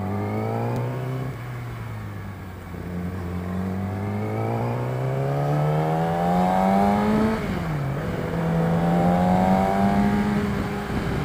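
Yamaha R6's inline-four engine through an Akrapovic exhaust, accelerating through the gears. Its pitch rises, drops at an upshift just over a second in, climbs slowly to a second shift about seven seconds in, then rises again and holds steady.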